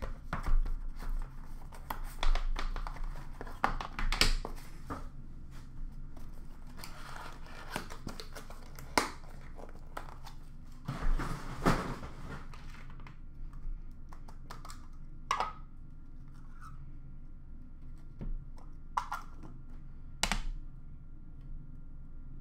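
Plastic wrap and packaging of a hockey card box being torn open and crumpled, with cardboard thunks as the box and packs are handled. The rustling is busiest in the first half, then thins to scattered crinkles and taps.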